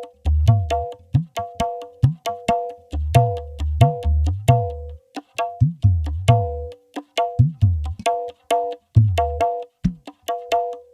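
Percussion-led music: a quick rhythm of sharp clicking hits and short pitched taps, over deep bass drum hits that come in short runs with gaps between them.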